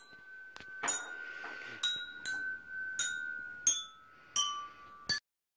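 Hand-held hanging metal chimes struck one at a time by different players, picking out a tune note by note. About seven bright, ringing strikes sound at uneven intervals, each note sustaining and overlapping the next. The sound cuts off abruptly near the end.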